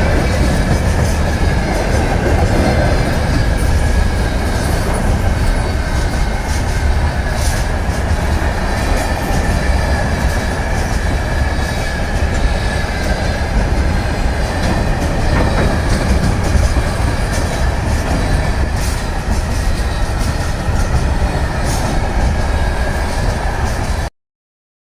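Freight train wagons rolling past on continuous welded rail: a steady, loud rolling rumble with a faint ringing tone and only a few scattered wheel clicks instead of a regular clickety-clack, since the rails have no joints. The sound cuts off abruptly near the end.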